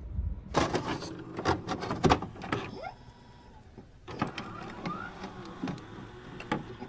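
Glitchy electronic transition sound effect: irregular digital clicks and crackles with short blips of pitch. It drops away for about a second midway, then comes back as a denser run of clicks.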